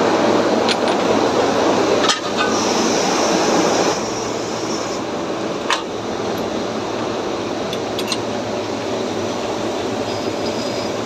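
CNC gear-machining machine running with a steady mechanical noise, broken by a few sharp metallic clinks. A high hiss sounds from about two and a half to five seconds in, and the noise drops a little about four seconds in.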